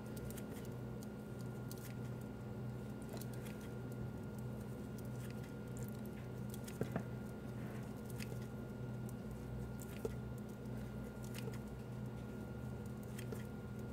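Kitchen scissors snipping pieces off a ball of raw seitan dough, with faint scattered blade clicks and soft sticky squishing, over a steady background hum.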